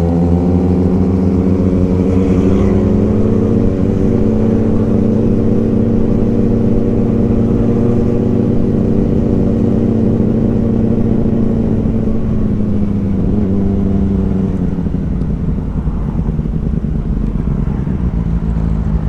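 Inline-four superbike engine running at steady revs. About twelve seconds in its pitch starts to fall, and by about fifteen seconds it has settled lower as the revs drop.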